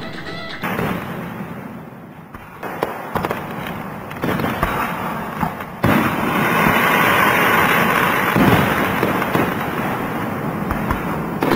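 Fireworks going off: scattered pops and crackles, then about six seconds in a sudden, loud, dense crackling that carries on.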